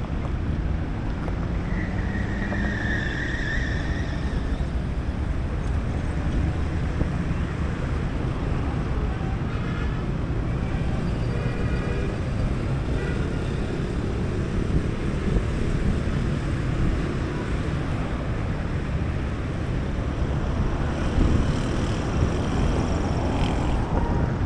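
Steady outdoor street noise of motor vehicles running and passing, with a brief high-pitched tone about two seconds in.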